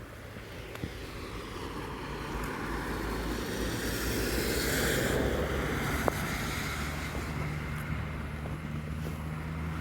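Strong wind gusting, a rushing noise that swells to a peak about halfway through and then eases off, over a low steady hum. A single sharp click about six seconds in.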